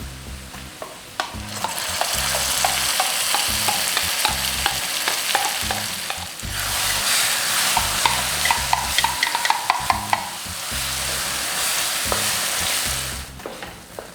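Food sizzling loudly in hot oil in a pan while a spoon stirs and scrapes against the pan, clicking repeatedly. The sizzle jumps up about a second in, eases around the middle, surges again, and dies down near the end.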